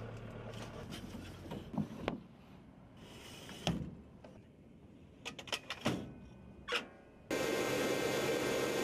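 Scattered sharp clanks and knocks of a rocket being slid and seated into an AH-64 Apache helicopter's 19-tube rocket pod. About seven seconds in, a much louder, steady engine noise starts.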